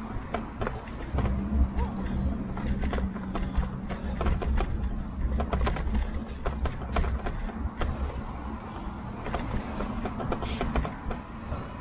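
Tern HSD e-bike and its handlebar-mounted camera rattling and knocking irregularly as it rides over a rough path, over a low rumble of tyres and wind. A steady low hum runs from about a second in until about eight seconds.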